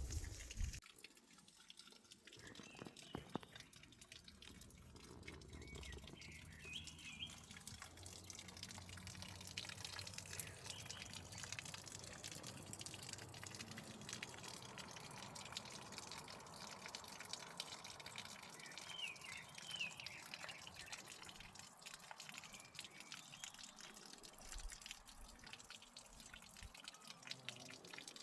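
Faint, quiet outdoor background with scattered small ticks, like dripping, and a couple of brief bird chirps, one early and one about two-thirds of the way through.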